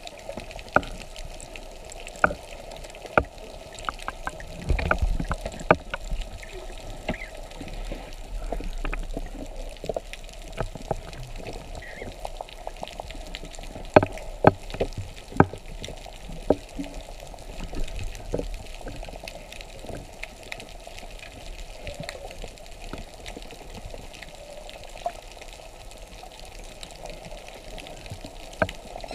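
Underwater sound picked up by a GoPro Hero3+ Black inside its waterproof housing: a muffled, steady wash with scattered sharp clicks throughout and a louder low rumble a few seconds in.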